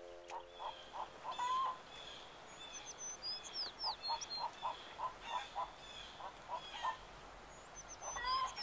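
Birds calling around a village yard: runs of four or five short repeated calls, and high, quick downward chirps in two groups, about three seconds in and again near the end.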